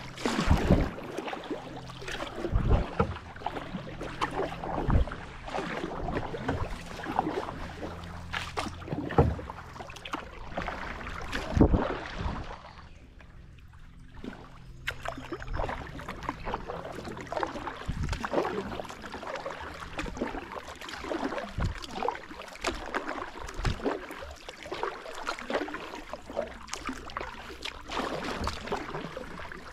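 Kayak paddle strokes in water: splashes and drips about every one to two seconds, with the odd knock of the paddle. There is a brief quieter pause about halfway through.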